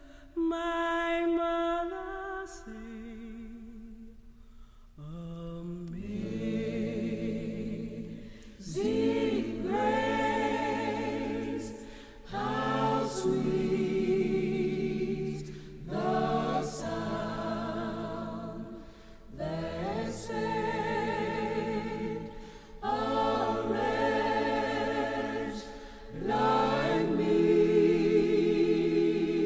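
Unaccompanied voices singing a slow song in long phrases. A single voice line carries the first few seconds, then a fuller group of voices comes in about five seconds in, pausing briefly between phrases.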